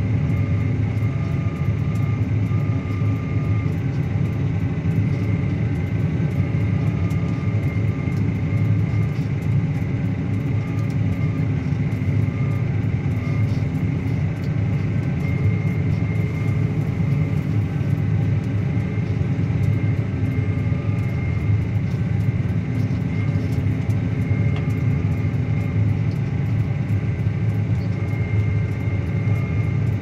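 Claas Axion 850 tractor's six-cylinder diesel running steadily under load while pulling a Kuhn Varimaster reversible plough through the ground, with a high steady whine above the engine note.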